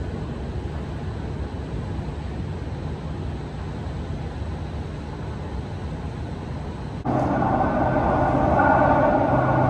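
Low steady rumble in an underground metro station, then about seven seconds in the sound jumps suddenly louder as a Madrid Metro Line 1 train approaches out of the tunnel, rumbling along the rails with a steady hum.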